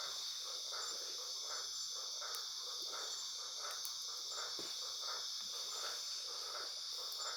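Night insect chorus: a steady high-pitched cricket drone, with a softer pulsing call repeating a little over twice a second beneath it.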